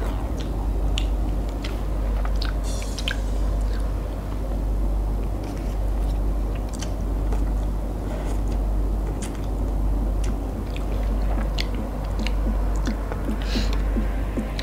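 A person eating instant ramyun noodles: slurping them up from chopsticks and chewing, with many short wet smacks and clicks. A steady low hum runs underneath.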